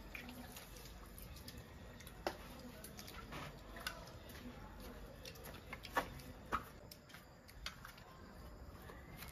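Chopsticks tapping and scraping against stainless steel bowls and plates during a meal: a few light, scattered clicks, the sharpest two around six seconds in.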